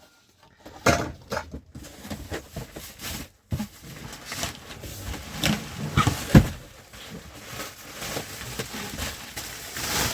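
Handling noise from unpacking: irregular rustling, clicks and light knocks of packaging and parts being moved about, with one sharper knock about six seconds in.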